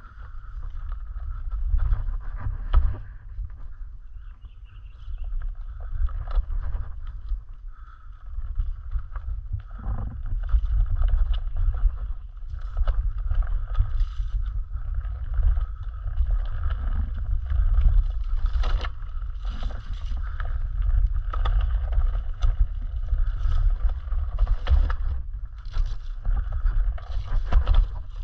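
One-wheeled electric board ridden over a bumpy dirt trail: a constant low rumble with a steady whine above it, and scattered sharp knocks as the tyre goes over bumps and roots.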